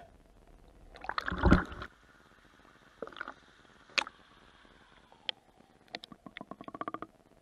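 Stream water sloshing and gurgling around a camera held in the water, with a loud splashy burst about a second in. Scattered sharp clicks and knocks follow, then a quick run of ticks near the end.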